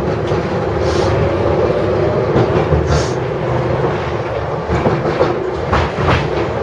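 A 71-605A (KTM-5) tram running, heard from inside the car: a steady rumble of wheels on the rails with a motor hum, and a few clacks over rail joints near the end.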